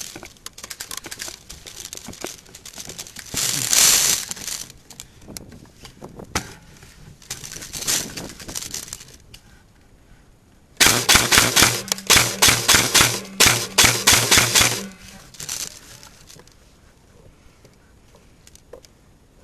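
An airsoft gun fires several rapid full-auto bursts a little past halfway through, a fast clatter of shots over a steady motor whine typical of an electric airsoft rifle. Before that there is rustling of gear and brush.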